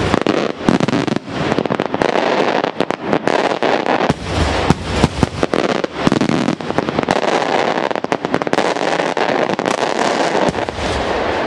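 Maltese daylight fireworks going off: a fast, dense barrage of loud bangs and cracks, thinning to a steadier rumble near the end.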